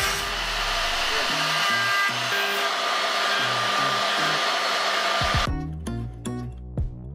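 Gantry-mounted wood router spindle running at high speed with a steady whine and hiss as it cuts box-joint fingers in pine, over background music. About five and a half seconds in it cuts off suddenly, leaving only plucked guitar music.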